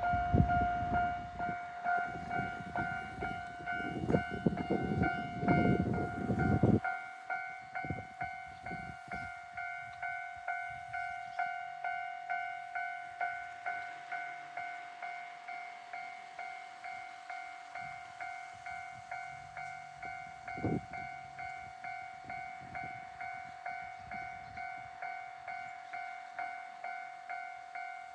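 Japanese level-crossing alarm bell clanging steadily at about two strikes a second. For the first seven seconds a train runs past with a heavy rumble and wheel clatter, which stops abruptly.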